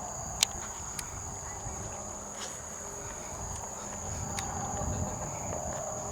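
Night insects trilling steadily in a high, unbroken tone, over a low rumble of outdoor noise, with a few sharp clicks, the loudest about half a second in.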